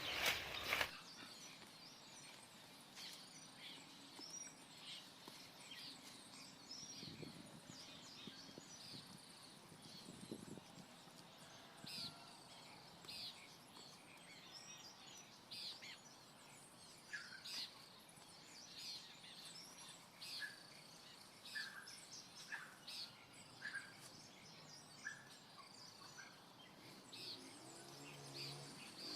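Birds chirping outdoors: many short, high calls, one at a time, every second or so over a faint background hiss. A brief loud knock or rustle comes right at the start.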